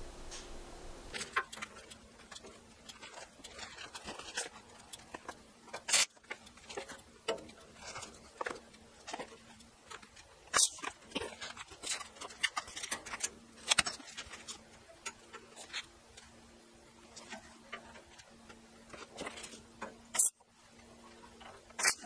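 Irregular sharp clicks and knocks from steel rebar and bar stock being handled and set in place on a steel pipe beam, a few of them louder, over a faint steady hum.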